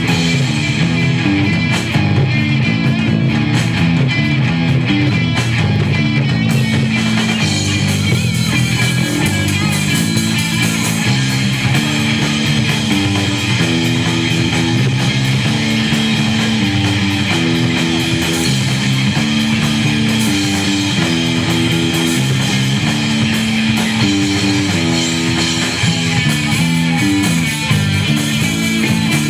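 A live rock band playing loud electric guitars over a drum kit, with a low guitar riff repeating its pattern of notes.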